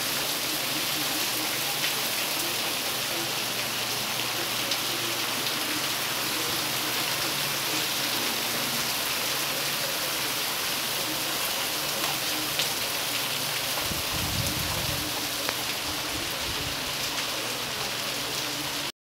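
Steady rain falling on a cobblestone street, an even hiss with scattered drop ticks. A brief low rumble comes in about fourteen seconds in.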